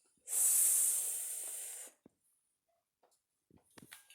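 A person hissing a sustained "sss", the phonetic sound of the letter s, held for about a second and a half and fading toward the end.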